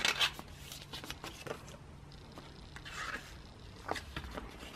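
Photocards and plastic card sleeves being handled and slid into binder pockets: soft rustling, scraping and small clicks, loudest just at the start.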